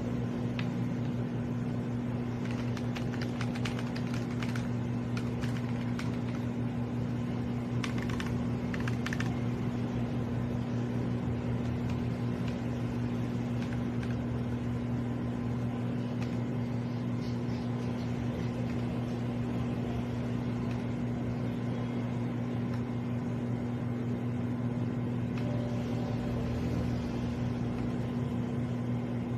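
Typing on a mechanical keyboard fitted with linear switches: quick, faint key clacks, densest in the first ten seconds and sparser after. A steady low electrical hum runs under them and is louder than the keys.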